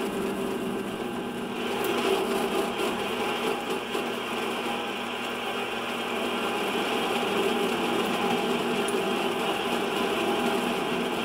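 Small benchtop metal lathe running steadily, its motor and drive humming with a few constant tones, while a parting tool cuts into the spinning workpiece held in an ER32 collet chuck. It gets a little louder about two seconds in.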